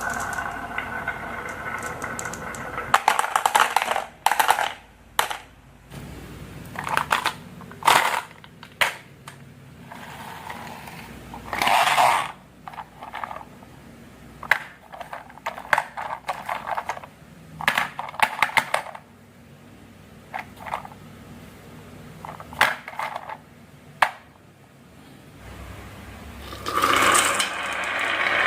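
Marbles rolling along a HABA wooden marble run, with a steady rolling rumble at the start and again near the end. Many sharp clacks and knocks in between, as the marbles drop and strike the wooden track pieces.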